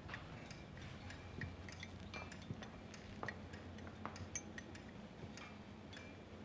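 A teaspoon stirring tea in a porcelain cup, giving faint, irregular light clinks against the china.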